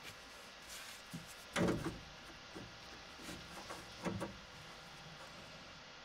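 A few scattered knocks and bumps from a plumber's hands and tools working inside an opened wall cavity among copper pipes, the loudest about a second and a half in and another around four seconds in.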